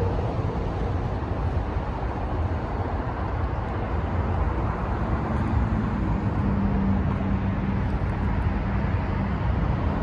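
Steady road traffic noise, a continuous low rumble of passing cars. About halfway through, one vehicle's low engine hum rises over it for a few seconds.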